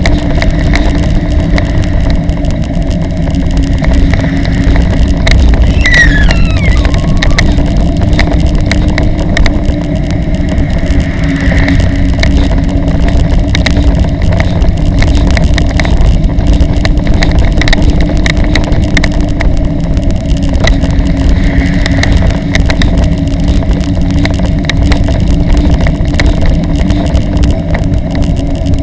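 Steady loud rumble of riding along a street: wind buffeting the microphone and wheels rolling on the road surface, with a steady low hum running under it.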